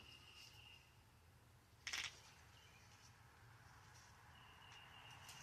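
Near silence: faint outdoor background with a thin high tone twice and one brief short noise about two seconds in.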